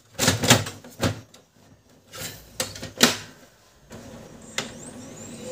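Plastic clicks and knocks as the cartridge is slid back into a Brother DCP-L2540DW laser printer and the front cover is snapped shut, with a sharp clack about three seconds in. Near the end the printer's motor starts a steady whir.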